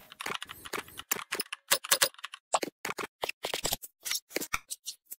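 Computer keyboard typing sound effect: a quick, irregular run of sharp key clicks, ending with one last click just before the end.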